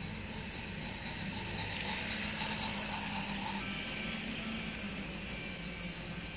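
Battery-powered toy train running along plastic track, a small-motor whir and wheel rattle that grows louder as it passes close, peaking a couple of seconds in, then easing off.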